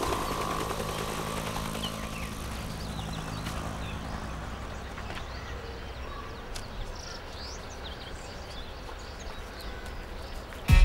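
Helicopter flying overhead, its engine and rotor drone fading away over the first four seconds or so. After that, quiet outdoor ambience with a few faint high chirps.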